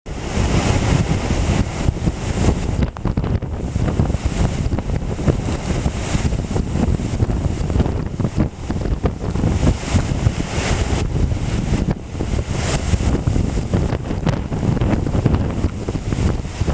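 Hurricane winds gusting and buffeting the camera microphone: a continuous heavy rumble that swells and dips with each gust.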